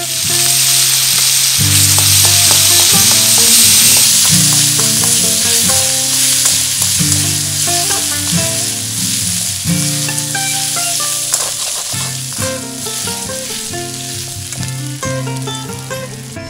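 Ginger paste and tempering spices (radhuni and fenugreek seeds) sizzle in hot oil in a wok as the paste drops in. The sizzle is loudest over the first few seconds, then dies down as a spatula stirs the mixture. Background music plays underneath.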